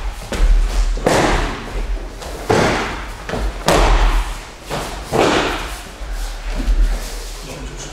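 Aikido practitioners taking breakfalls on a mat: four heavy thuds of bodies landing and rolling, about a second and a half apart.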